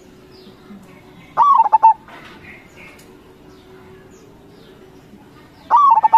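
Zebra dove (perkutut) singing: two short cooing phrases about four seconds apart, each a quick run of clipped notes that rises and then falls, about half a second long.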